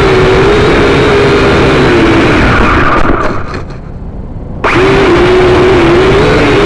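Electric motor and gears of a remote-control car whining loudly, the pitch wavering up and down with speed. About three seconds in the motor cuts out with a few clicks, and it starts again abruptly a second and a half later.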